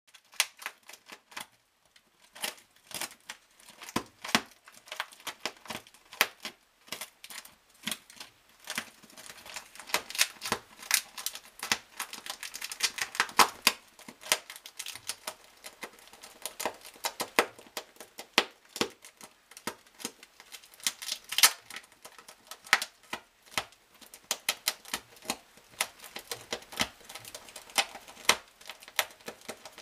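A European ground squirrel's claws scratching and picking at sticky tape on a wall: a rapid, irregular run of sharp clicks and scrapes.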